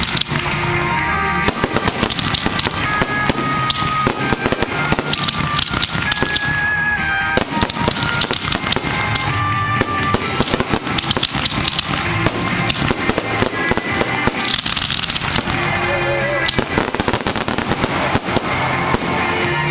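Aerial fireworks shells bursting in a rapid, continuous barrage: many overlapping bangs and crackles with no break.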